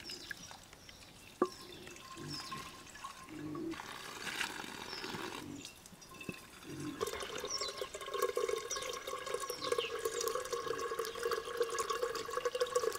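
Water pouring and dripping, with scattered drips and splashes at first and a steadier stream from about seven seconds in.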